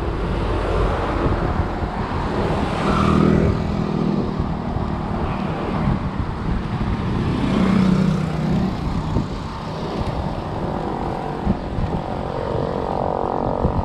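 Road noise from a moving bicycle: wind rushing over an action camera's microphone, mixed with motor traffic passing, which swells about three seconds in and again around eight seconds.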